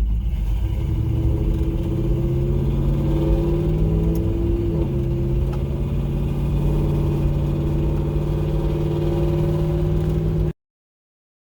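Car exhaust through a Flowmaster 40 series muffler with no catalytic converter, the engine idling steadily with a brief change in pitch about four to five seconds in. It is a little loud for the owner, who considers adding a catalytic converter.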